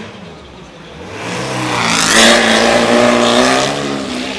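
Open-wheel single-seater race car engine passing close by at speed: the engine note swells to a loud peak about two seconds in, then fades as the car goes away.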